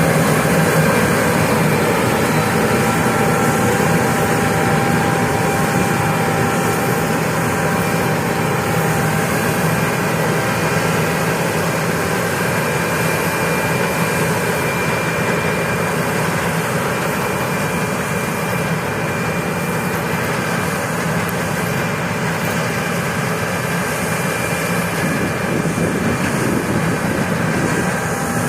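Harvest machinery running steadily through the wheat harvest: a continuous engine sound with several held whining tones over it.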